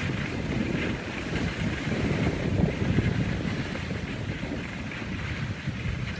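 Wind buffeting the microphone, with the hiss of skis sliding over groomed snow underneath.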